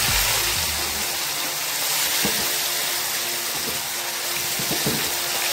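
Fish pieces frying in hot oil in a kadhai: a loud, steady sizzle.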